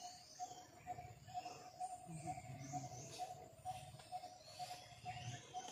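Faint forest ambience: small birds chirping with short high calls, over a steady pulsing call that repeats about twice a second.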